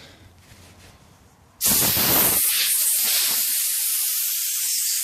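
Compressed-air blow gun blasting a jet of air into a chainsaw guide bar's groove to clear out wood debris. It starts abruptly about a second and a half in and keeps hissing steadily.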